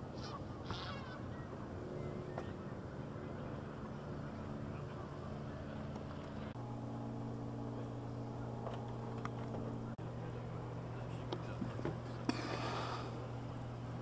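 Geese honking now and then, with a short run of calls near the start and a louder burst near the end, over a steady low engine hum.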